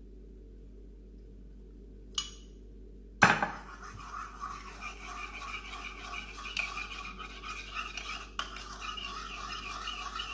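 A sharp knock about three seconds in, then steady scraping and clinking of a thin stirrer worked round a small bowl, stirring powder into rice water until it dissolves.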